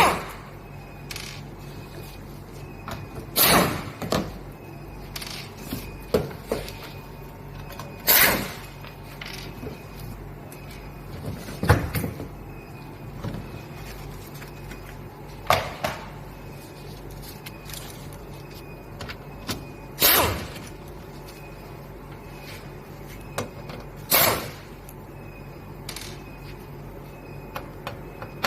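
An abnormal mechanical noise repeated about every four seconds: each is a short, loud rush, the first with a squeak in it, and lighter clicks come between them.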